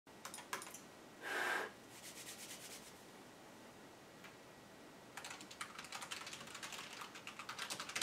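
Mechanical keyboard typed at speed: a dense, fast run of key clicks for about the last three seconds as the alphabet is typed, with shorter runs of clicks earlier. A brief burst of noise about a second and a half in is the loudest sound.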